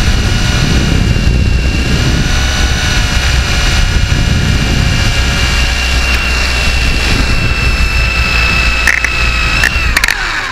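Small RC helicopter's motor whining at a steady high pitch, with rotor downwash buffeting the onboard microphone as a low rumble. A few knocks near the end, then the motor winds down with falling pitch.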